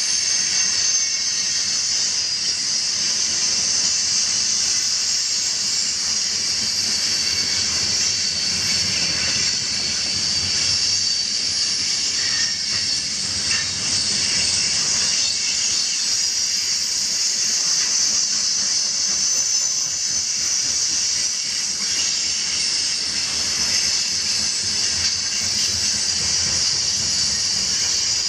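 Loaded coal gondola cars rolling past on steel wheels, a steady high hiss of wheels on rail with a faint thin squeal running through it.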